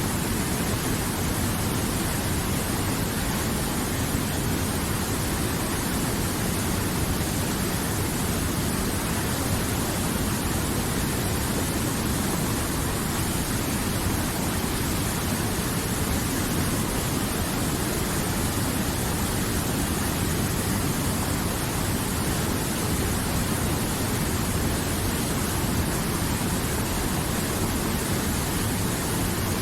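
River water flowing, a steady even rush with no change.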